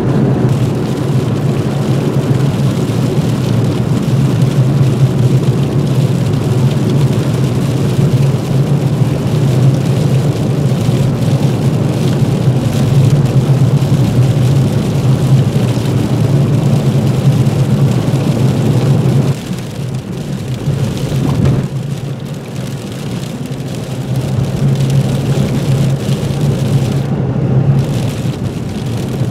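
Road noise heard from inside a car driving on a snow- and sleet-covered road: a steady engine hum under the hiss of tyres on slush. It eases off for a few seconds about two-thirds of the way through, then builds again.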